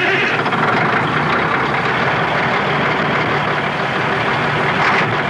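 Heavy truck engine running steadily.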